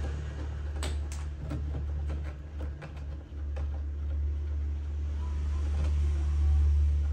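Several sharp clicks and taps, about a second to four seconds in, from tools and hands working the screws of a floor monitor's amplifier panel, over a steady low rumble.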